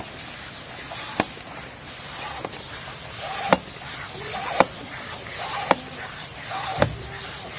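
Bicycle pump worked stroke after stroke, inflating a mountain bike tire toward its 65 PSI maximum to seat the bead. Each stroke is a rising rush of air ending in a sharp click, about six strokes roughly a second apart.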